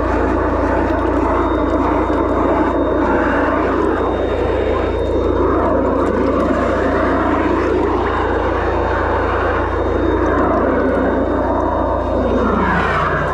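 High-pressure drain jetting machine running steadily, a loud constant drone with a faint steady whine, as its jet hose works through a blocked drain chamber.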